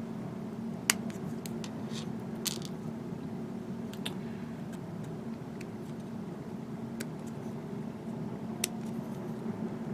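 Small plastic model-kit parts being handled and fitted together: a dozen or so sharp, separate clicks and taps, the loudest about a second in, over a steady low hum.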